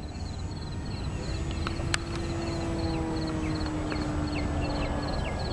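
Top Flite P-40 electric RC plane's motor and propeller whining as it flies overhead, a steady tone that sags slightly in pitch, over low wind rumble on the microphone. A rhythm of short high chirps, about three a second, runs behind it, and a single sharp click comes about two seconds in.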